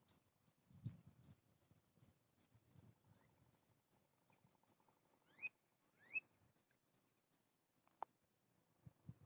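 Faint, short high chirps repeating evenly about two and a half times a second, stopping a couple of seconds before the end. Two rising whistled notes come a little past halfway, and there is a sharp click near the end.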